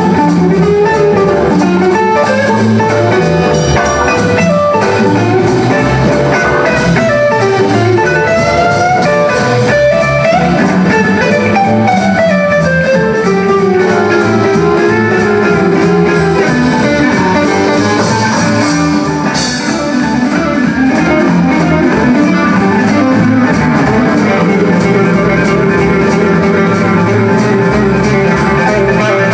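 Live blues band playing an instrumental stretch: an electric guitar solo with gliding, bent notes over drums, organ and bass. A cymbal wash builds about two-thirds through and stops abruptly.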